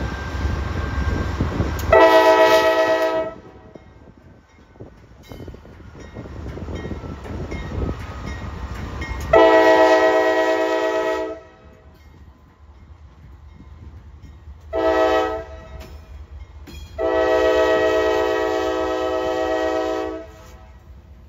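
Norfolk Southern freight train's multi-chime diesel locomotive air horn sounding the grade-crossing signal: long, long, short, long, with the last blast held about three seconds. At the start it sounds over the low rumble of the passing locomotives' engines, and later the freight cars rolling by are heard between blasts.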